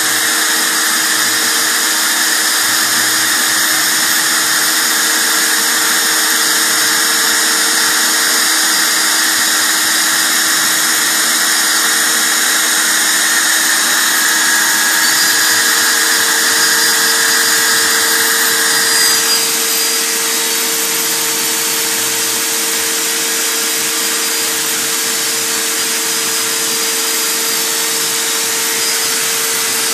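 CNC gantry milling machine running, its spindle giving a steady high whine over several steady tones. About two-thirds of the way through the sound changes abruptly, one tone dropping out and the higher tones shifting.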